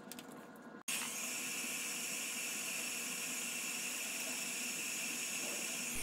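Mini hot air gun running: a steady hiss of blowing air with a thin fan whine, starting suddenly about a second in. It is heating the tablet screen to soften its adhesive.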